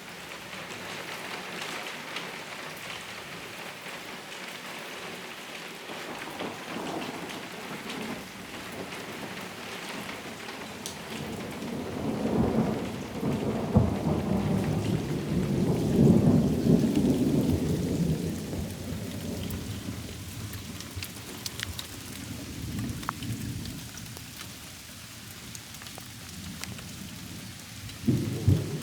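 Steady rain, with a long rolling rumble of thunder that builds about twelve seconds in, is loudest a few seconds later and dies away, following a lightning flash.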